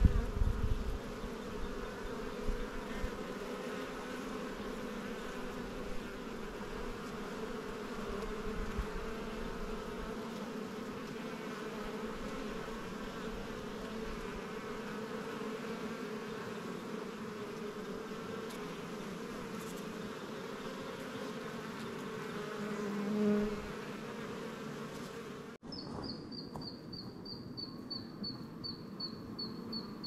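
Honeybee colony humming steadily inside a clear-walled hive, with a low rumble in the first second and one buzz swelling louder for about a second near 23 s. About 25 s in the sound cuts off suddenly; after it a fainter hum continues under a rapid high trill that slowly falls in pitch.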